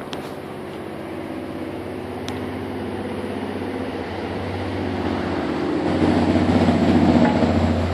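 An engine running steadily at idle, with an even hum that grows louder over the last few seconds.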